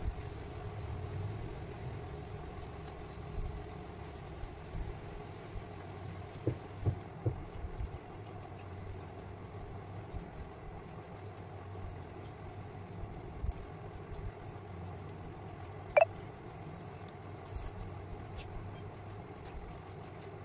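Small scissors snipping fringes into a paper strip, faint crisp snips over a steady low hum. A brief squeak falling in pitch stands out about 16 s in.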